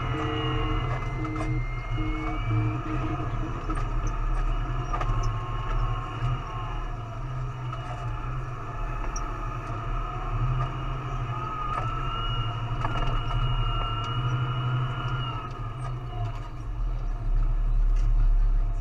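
Valtra 8550 tractor's diesel engine running steadily, heard from inside the cab as a low drone with a thin whine over it that drifts up and down in pitch.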